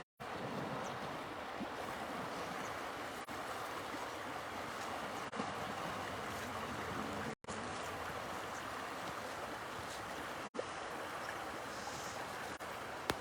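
Steady rushing outdoor noise with no distinct calls, cut off for an instant three times by edits: near the start, a little past halfway and about three-quarters through.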